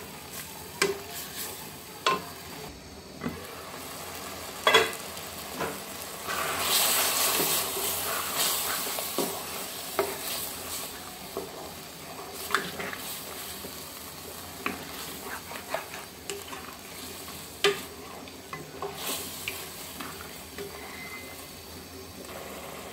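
Cubes of beef spleen sizzling in oil and spice paste in a pot while being stirred with a wooden spatula, which scrapes and knocks against the pot many times. The sizzle swells for a few seconds about a quarter of the way in. The masala is being fried down before any water goes in.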